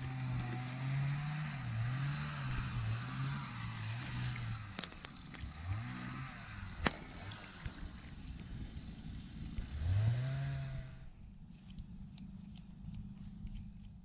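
Sausage pieces sizzling in hot oil in a pan over a wood fire, with a low wavering drone underneath. About eleven seconds in, the sizzle and drone cut off sharply, leaving faint ticks and crackles.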